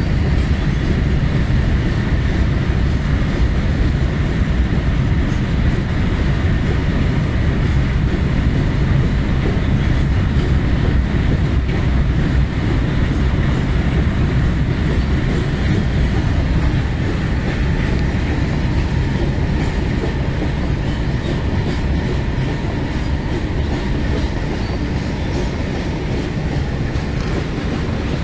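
A freight train of brand-new BOXNHL open wagons rolling past: a steady rumble of steel wheels on the rails with clickety-clack over the rail joints.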